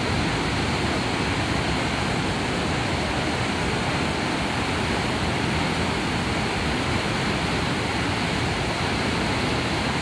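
Sengataki waterfall pouring into its plunge pool: a loud, steady rush of falling water that never lets up.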